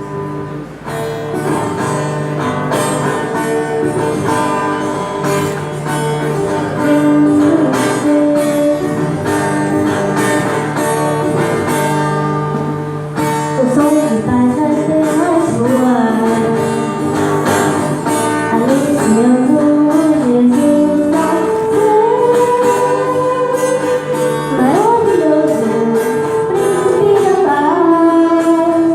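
A song played live: plucked-string accompaniment with steady held notes, joined about halfway through by a solo voice singing the melody.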